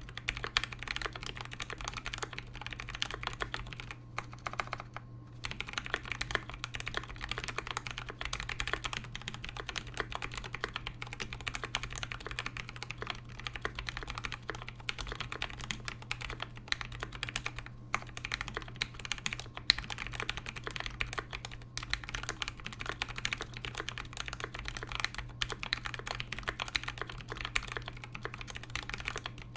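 Continuous typing on a KBD67v2 mechanical keyboard with Krytox-lubed Zealios v2 67g tactile switches, a brass plate and GMK keycaps: a dense run of key strokes, with a short pause about four seconds in.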